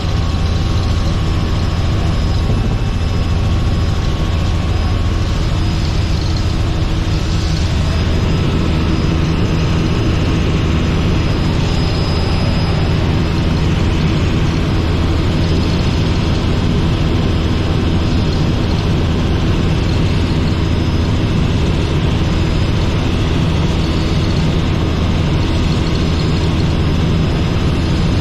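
Robinson R44 helicopter in flight, its engine and rotors making a loud, steady drone with a low hum.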